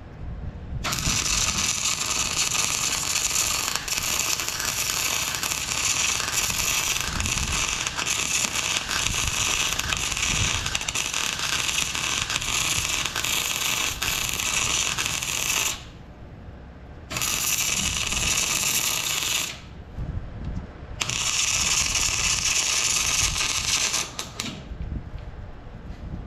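Wire-feed (MIG) welding arc crackling and sizzling on steel, in three runs: one long bead of about fifteen seconds, then two shorter ones of two to three seconds each, with brief pauses between.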